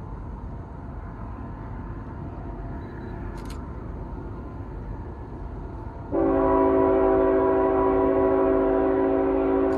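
Freight locomotive's multi-chime air horn sounding one long, loud chord that starts suddenly about six seconds in, over the steady low rumble of the CSX intermodal train.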